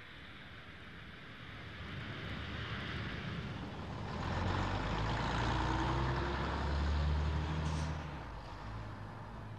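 City bus's diesel engine running as the bus drives past close by. The sound swells about four seconds in and eases off again after about eight seconds, with a brief hiss near the end.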